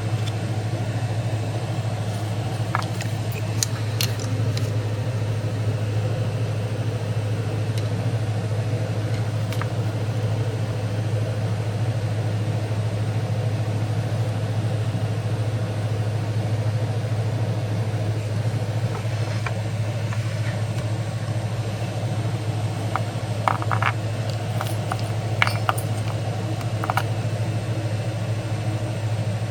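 Steady low mechanical hum, with a few light clicks and rattles about four seconds in and again near the end.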